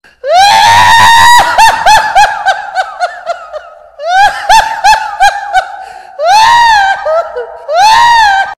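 High-pitched, cartoonish recorded laughter. It opens with a long rising cry that breaks into quick falling 'ha-ha' pulses, about four a second, growing weaker. A second run of pulses follows, then two long rising-and-falling squeals near the end.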